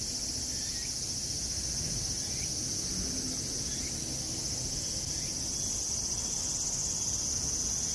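Steady, high-pitched chorus of insects singing without a break.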